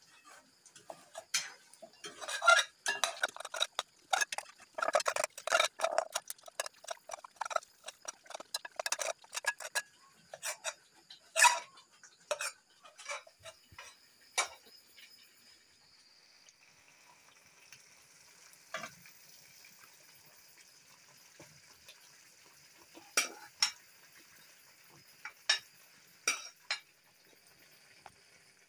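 Metal spatula scraping and clattering against a frying pan as an egg omelette is turned and cut, in a dense run of strokes through the first half. After that comes a faint steady sizzle with a few single clinks.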